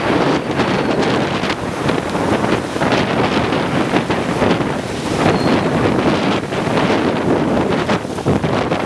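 Hailstorm: hail and heavy rain pelting down steadily, a dense patter of countless small impacts.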